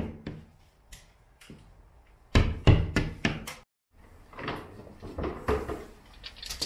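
Sharp knocks and clicks of hand tools worked against a plasterboard ceiling, a cluster of about five close together around the middle, then a brief dropout, then further scattered clicks.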